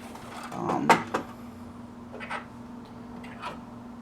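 Sewing machine accessories being handled, with a few sharp clicks and knocks: two loud ones about a second in, fainter ones later. A steady low hum runs underneath.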